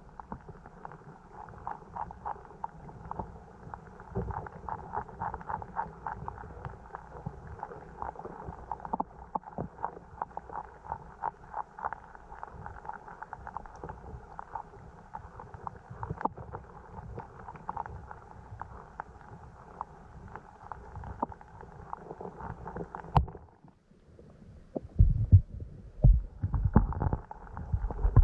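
Stream water running, heard muffled, with a dense patter of small ticks and clicks. About 23 seconds in it cuts out briefly, and louder low thumps and rumbles follow.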